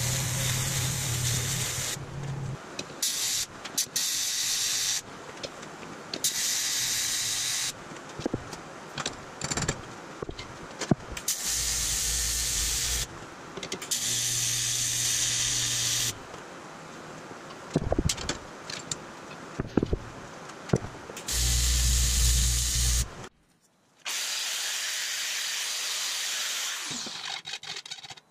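TIG welding arc hissing and buzzing in a string of separate runs, each about one to three seconds long, struck and cut off again and again, with a few sharp knocks between runs.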